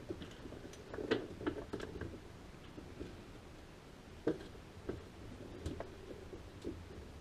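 Scattered light clicks and taps of a hand tool working the chain tensioner on a Stihl MS 360 chainsaw to back it off, with the sharpest clicks about a second in and about four seconds in.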